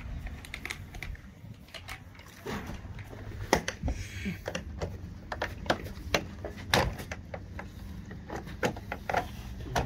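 Irregular knocks, taps and clicks of vinyl siding panels being handled and pressed against the wall, over a low rumble. The loudest knocks come about three and a half and seven seconds in.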